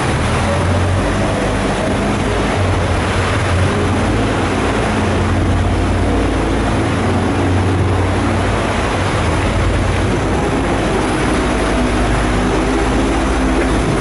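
Small passenger boat's motor running steadily at low speed, a constant hum that drifts slightly in pitch.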